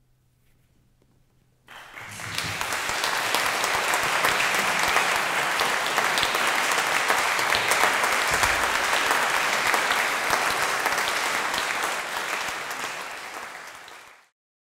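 After a moment of near silence, an audience breaks into applause suddenly, about two seconds in. The clapping holds steady, then fades and is cut off abruptly just before the end.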